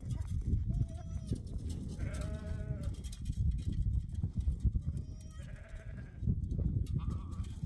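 Goats bleating several times, short wavering calls, the longest about two seconds in, over a steady low rumble.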